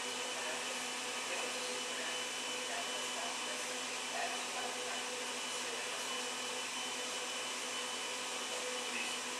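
Steady mechanical whir with a constant, unchanging hum.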